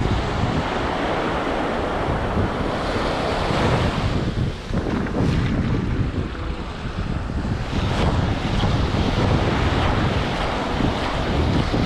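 Waves breaking and washing up a sandy surf beach, with wind buffeting the microphone and a low rolling rumble that swells and eases.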